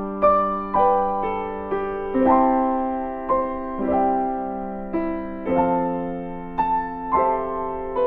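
Background piano music: a slow melody over held chords, with a new note struck about twice a second and each fading after it sounds.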